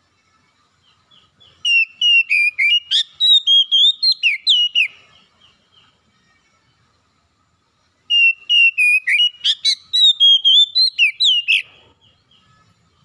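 Oriental magpie-robin singing two phrases of fast, clear whistled notes that jump and slide in pitch, each phrase about three to four seconds long, the second starting about eight seconds in.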